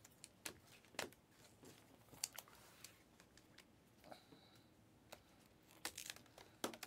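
Faint, scattered clicks and light rustles of glossy Panini Prizm trading cards being flipped through and slid against each other in the hands.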